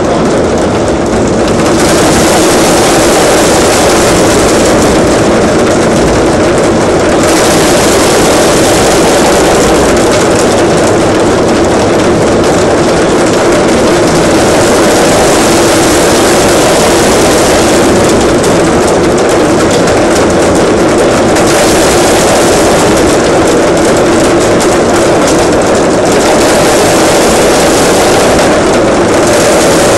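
Large group drumming with sticks on upturned plastic barrels: a loud, dense, unbroken clatter of many strokes at once, swelling slightly about two seconds in.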